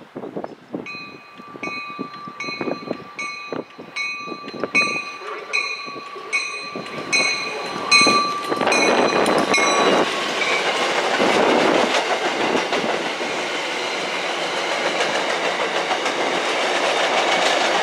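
MBTA commuter train hauled by an F40PH-2C diesel locomotive passing through a station. Wheels click over rail joints while a bell rings about twice a second for the first ten seconds, then the loud steady rush of the train going by close takes over.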